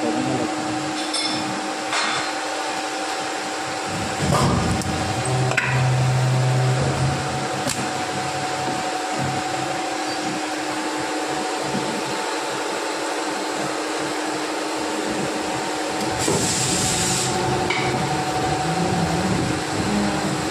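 Plastic injection moulding machine running with a steady hum. About four seconds in there is a knock, followed by a louder low hum for about two seconds, with a few sharp clicks elsewhere and a short hiss lasting about a second around the sixteen-second mark.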